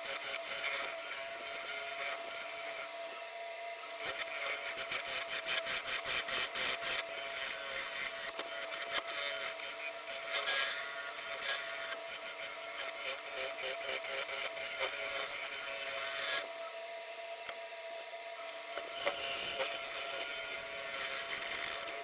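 Nova Comet II wood lathe running with a steady motor whine while a turning gouge cuts a spinning wooden blank, giving a rapid, even chatter of wood against the tool. The cutting stops briefly about three seconds in and again for a couple of seconds near the end, leaving the lathe whine alone.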